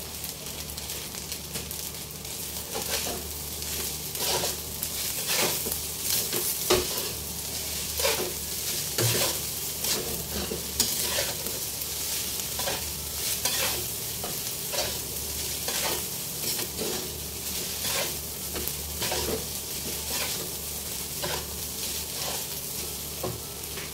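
Pineapple and egg fried rice sizzling in a steel wok while a metal spatula stirs and turns it, the spatula scraping and clicking against the pan in repeated strokes about once or twice a second.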